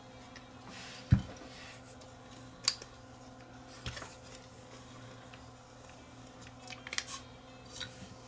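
Scattered light clicks and taps of small mechanical parts being handled during hand work on a DAT tape mechanism, with a low thump about a second in, over a faint steady hum.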